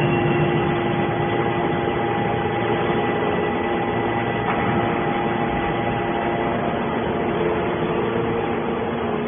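YDF-63 hydraulic scrap-metal baler running: a steady machine noise with several steady tones held through, shifting slightly about four and a half seconds in.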